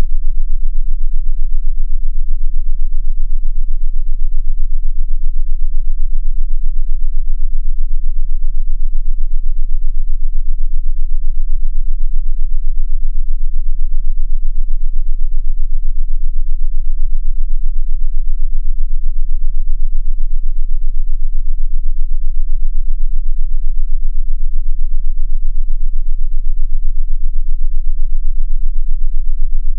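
A synthesized sound-therapy frequency: a loud, steady, very deep tone, with only a faint hum above it.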